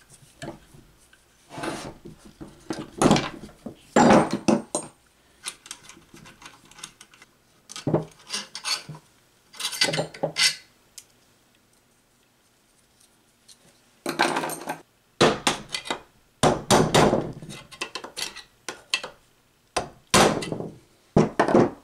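Metal tools and steel bolts clinking and knocking on a wooden workbench in irregular bursts, with a quiet spell about halfway through, as long through-bolts are taken out of an electric motor's housing and a screwdriver pries at its end cover.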